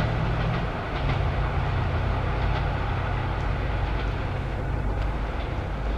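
ED4MKU electric multiple unit running slowly towards the listener, a steady low rumble from its wheels and running gear, with a few faint clicks as the wheels pass over rail joints and points.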